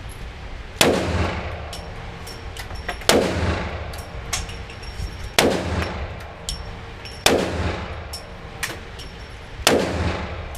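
Five single gunshots about two seconds apart, each a sharp loud crack with a trailing echo. Fainter cracks or clicks are heard between them.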